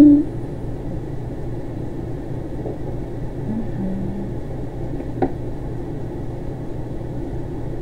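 Steady low hum and rumble of room noise, with one short click about five seconds in.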